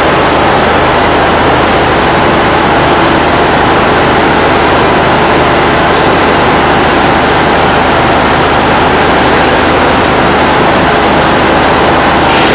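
Steady, loud machinery din: an even rushing noise over a constant low hum, with no change in pitch or level.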